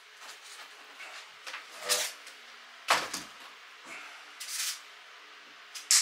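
Hands working on electrical wiring and tools: a few separate sharp knocks and clicks, the loudest about three seconds in, with a short rasp a little after halfway.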